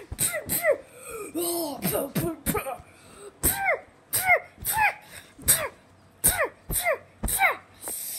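A child's voice making a rapid string of short fight sound effects with the mouth, punch and hit noises for a toy battle. There are about two a second, each a sharp burst whose pitch drops quickly.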